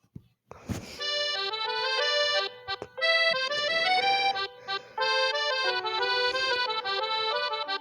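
Huawei P30 phone ringtone: a reedy, accordion-like melody of held notes and chords, starting about a second in after a short noisy rustle.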